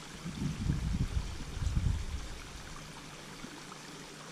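Steady wash of water along the shore, with a run of low rumbling bumps lasting about two seconds near the start.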